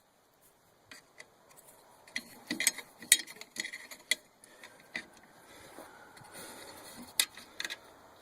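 Scattered sharp metallic clicks of a wrench tightening the 7/16 nuts on a riding mower's seat safety switch, coming irregularly and sometimes in quick clusters.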